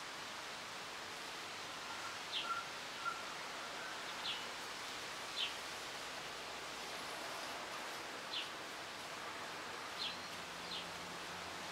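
Breeze rustling through native bush foliage, a steady rushing noise. Birds call over it: about six short high chirps spread through, and a few brief lower notes two to three seconds in.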